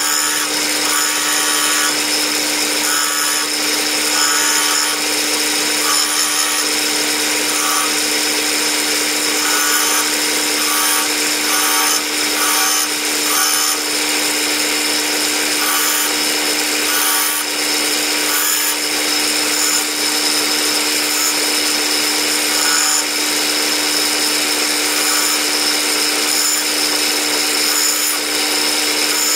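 Benchtop disc sander running with a steady motor hum, as a small cross-pein hammer head is pressed against the sanding disc in short, repeated passes, each adding a rasping grind.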